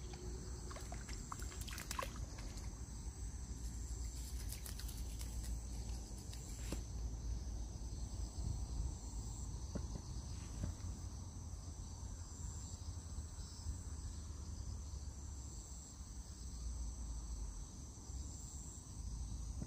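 Insects chirring steadily in the pondside reeds, over a low rumble, with a few sharp clicks in the first several seconds.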